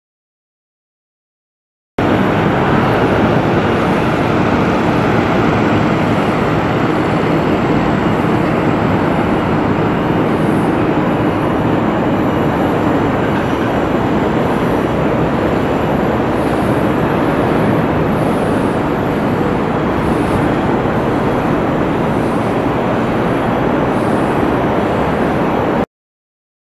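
Steady, loud, even rushing noise of outdoor ambience on a camera microphone, with no pitch to it. It starts abruptly about two seconds in after complete silence and cuts off abruptly near the end.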